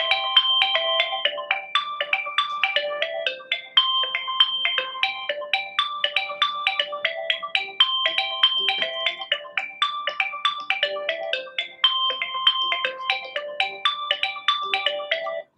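Redmi 5 phone's loudspeaker playing a ringtone at full volume: a short melody of quick high notes repeating in a loop, stopping just before the end.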